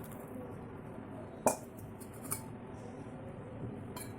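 Kitchen utensils clinking while boiled kadha is strained through a strainer: one sharp clink about a second and a half in and a lighter one shortly after, over a low steady background.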